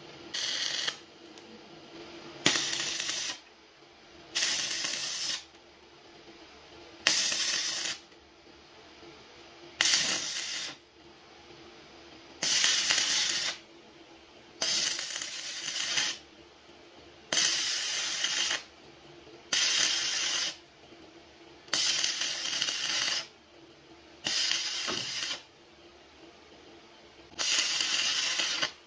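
Stick (arc) welding: the arc crackling and hissing in about twelve short bursts, each around a second long, every two to three seconds, as the rod is struck and broken off again for a run of tack welds on steel.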